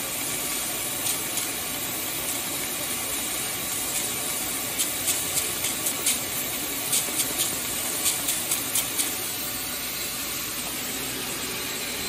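Steady hiss of a shop vac blowing air into the exhaust to pressurise it, with quick squirts of a trigger spray bottle of soapy water onto a welded exhaust pipe: one about a second in, then clusters of several around five seconds and again from seven to nine seconds. Soapy water is being sprayed on the pressurised pipe to find pinhole leaks by their bubbles.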